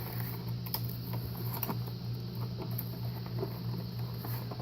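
Small scattered clicks and light rustling of plastic blister packaging and cardboard being handled as a Hot Wheels Monster Jam toy truck is unpacked, over a steady low hum.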